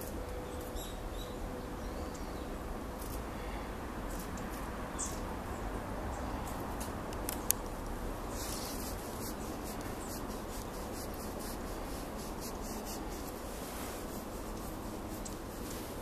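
Small birds in a flock calling with short, high chips and ticks, scattered and unevenly spaced, over a steady background hiss. One sharp click sounds about halfway through.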